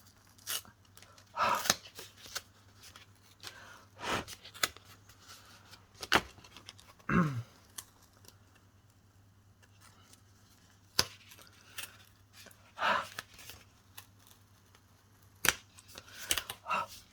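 Cardstock and paper being handled and pulled apart, likely a glued card layer being prised off: scattered sharp clicks and short rustling scrapes with quiet gaps between.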